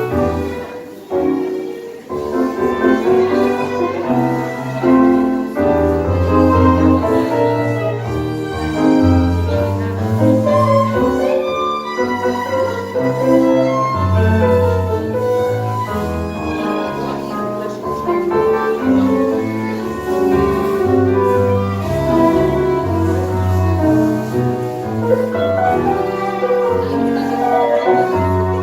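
Live tango music played by an ensemble, with a steady pulsing bass line and a melody over it.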